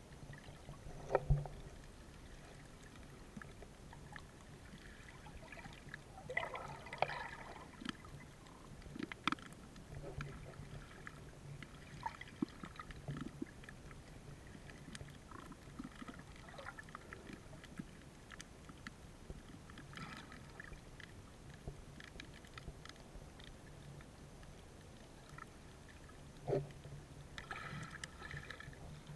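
Muffled underwater sound of moving water, with scattered short clicks, knocks and bubbling bursts over a low, steady hum.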